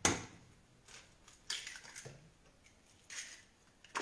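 Kitchen handling sounds as eggs are cracked into a plastic bowl: a sharp tap at the very start, then a few soft clicks and rustles of eggshells and the egg carton being handled.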